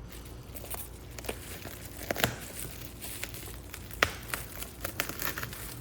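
Packaging around a new steering wheel being unwrapped by hand: irregular crinkling and tearing with scattered sharp crackles, the sharpest about four seconds in.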